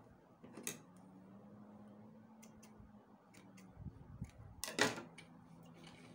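Quiet hand-handling at a sewing table: scattered small clicks and fabric rustles, with a louder clack near the end as steel scissors are set down on the wooden table.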